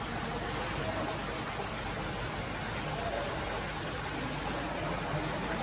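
Steady rushing and splashing of water in a koi pond, churned by its aeration jets and flowing inflow.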